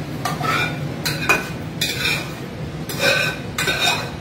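A spatula scraping cooled tomato pulp out of a frying pan into a steel pot, in about six short, uneven strokes over a steady low hum.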